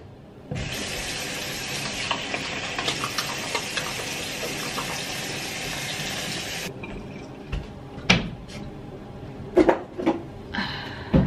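Bathroom sink tap running steadily for about six seconds, starting about half a second in and shut off abruptly, while a face is washed with wet hands. After it stops, a few splashes and knocks.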